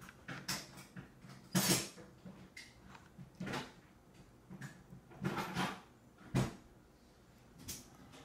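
Toddler's spoon and fingers clinking and scraping in a stainless steel bowl while she eats. About half a dozen irregular knocks and short scrapes, the longest scrapes about one and a half seconds and five seconds in.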